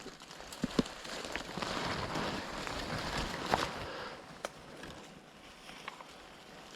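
Footsteps and rustling through undergrowth, with a few sharp snaps. It is loudest from about two to four seconds in, then quieter.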